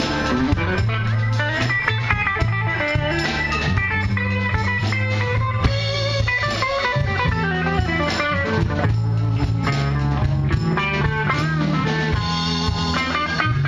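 A blues-rock band playing live through a PA in an instrumental passage: electric guitar with bending lead lines over bass and a drum kit.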